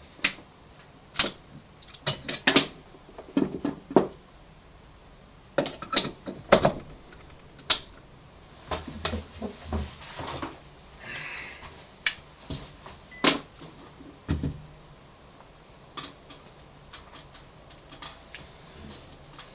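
Irregular clicks and knocks of a charger lead, its mains plug and a plastic XT90 connector being handled and set down on a cutting mat, with a multimeter being put down among them.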